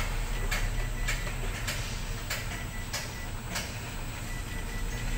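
Tower crane machinery heard from the operator's cab: a steady low hum with a regular clicking about every two-thirds of a second.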